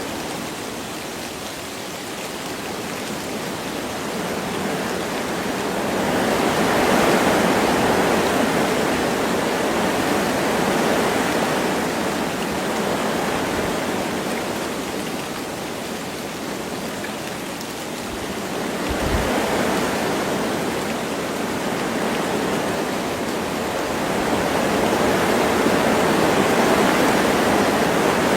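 Wind blowing through forest trees with light rain, a steady rushing that swells and eases in slow gusts every several seconds, with a brief low thump about two-thirds of the way through.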